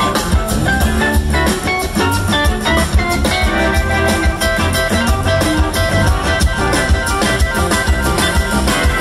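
Live blues-rock band playing: electric guitar lines over drum kit and bass, with organ, heard loud from within the audience.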